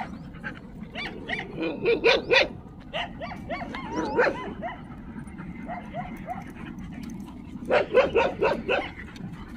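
Dogs barking in quick runs of short barks, in three bunches: in the first couple of seconds, again around the middle with a wavering whine, and once more near the end.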